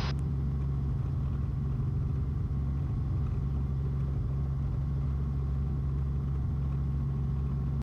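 Robinson R44 helicopter's engine and rotors running steadily as it holds a hover, a steady low drone. Its right skid is being eased onto a sloping ridge.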